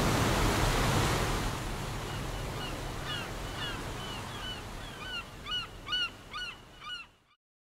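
Gulls calling, a run of short cries that grows louder and denser toward the end, over a rush of sea noise that fades away. All sound cuts off abruptly near the end.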